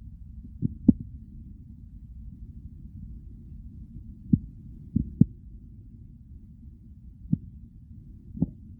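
Stomach and bowel sounds: a steady, muffled low rumble with short pops scattered at irregular gaps, about seven of them, some in quick pairs.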